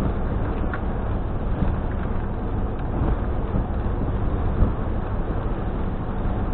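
Steady low engine rumble of a car ferry under way, with wind, heard from inside a vehicle parked on its deck.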